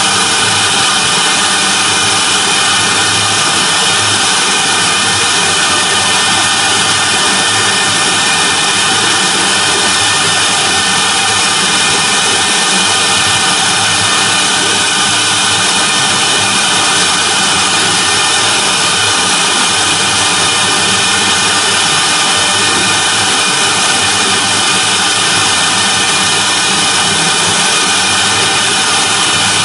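CNC router spindle running at high speed with a steady whine while its thin end mill carves a polystyrene foam block.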